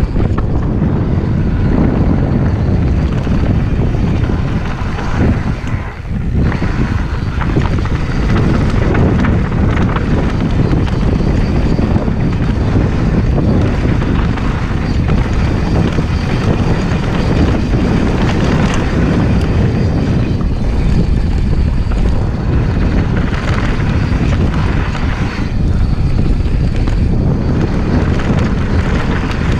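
Mountain bike ridden fast downhill on a dirt and gravel trail: a loud, steady rush of wind buffeting the camera's microphone over tyres rolling on loose dirt, with constant small rattles and knocks from the bike over bumps. It goes briefly quieter about six seconds in.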